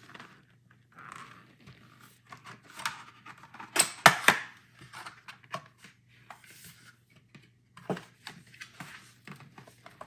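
Cardboard box and packaging being handled: irregular rustling and scraping with scattered clicks, and a couple of sharp knocks about four seconds in.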